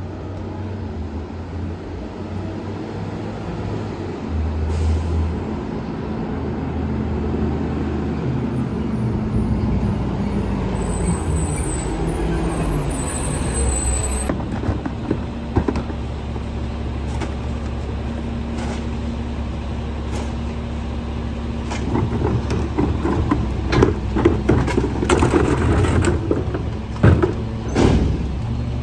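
Old CCC garbage truck's diesel engine running as the truck slows and pulls up, with a high squeal of the brakes as it stops about halfway through. It then idles steadily, with a run of knocks and clatter near the end as the street litter bin's trash goes into the rear hopper.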